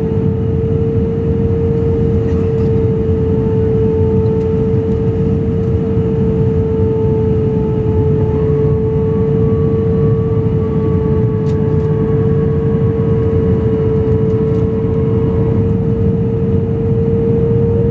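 Jet airliner cabin noise in flight: a steady low rumble of engines and rushing air with a constant mid-pitched whine on top.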